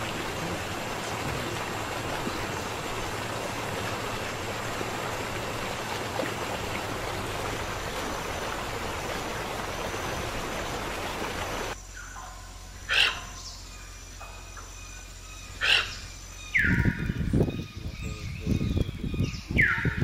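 A steady rushing noise that cuts off suddenly about twelve seconds in, leaving a quieter background of bird calls: a couple of sharp short calls and faint repeated chirps, then low rumbling with falling calls near the end.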